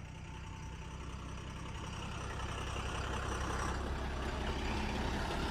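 Heavy diesel engine running steadily, gradually growing louder.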